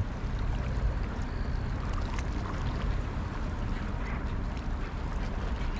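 Steady wind rumbling on the microphone over the water, with a few faint clicks.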